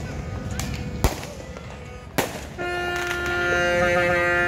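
Two sharp firework bangs about a second apart, then a horn blowing one long, steady note from a little past halfway.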